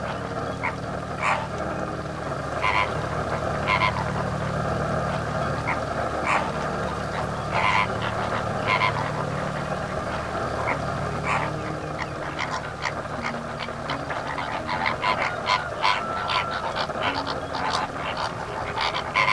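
A dense, steady chorus of croaking animal calls from a wetland, with louder single calls standing out every second or so and coming thicker near the end.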